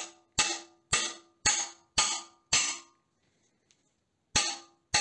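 Hammer blows striking a duralumin plate glued to a steel rod, each hit with a short metallic ring. Six blows about two a second, a pause of over a second, then two more.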